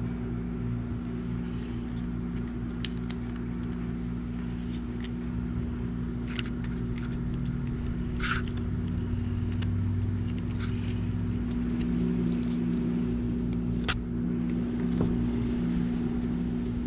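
Scattered small metallic clicks and scrapes of a screwdriver driving screws into the side plate of a Johnson 100A spincast reel, the sharpest about 8 and 14 seconds in, over a steady low hum.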